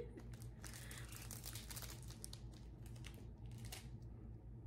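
Plastic packaging crinkling and rustling as items are handled, in a string of light, irregular clicks and crackles over a steady low hum.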